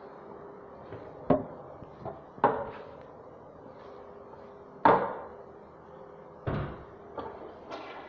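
A series of about seven sharp knocks and clunks, the loudest about five seconds in, from hard fixtures being handled in a small restroom, over a steady faint hum.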